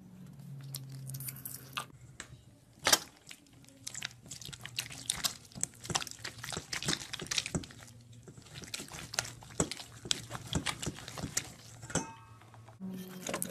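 Thick slime being stirred and folded with a wooden craft stick in a stainless steel bowl while activator is worked in: wet squelching with many small clicks and crackles, and one sharper click about three seconds in.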